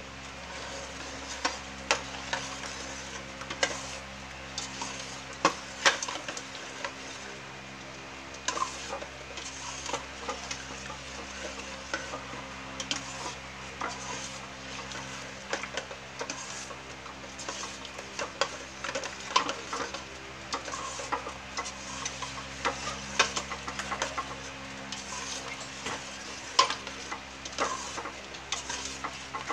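Metal ladle stirring chicken kare-kare in a stainless steel pot, clinking and scraping against the pot at irregular intervals, over a steady low hum.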